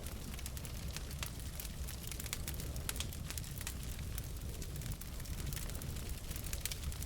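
Wood fire burning in a fireplace: a steady low rumble of the flames with many quick, irregular crackles and pops from the burning logs.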